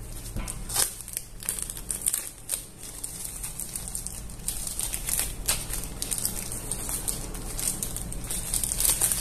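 A thin plastic bag crinkling and crackling as hands handle and unwrap it, in irregular sharp crackles.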